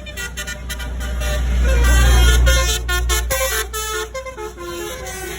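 Tour bus going by while its basuri telolet horn plays a tune of short notes stepping up and down in pitch, over the low rumble of the bus engine, which is loudest about two seconds in.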